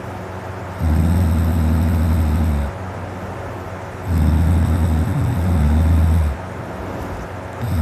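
A man snoring deeply: two long, low snores of about two seconds each, some three seconds apart, with a third starting at the very end.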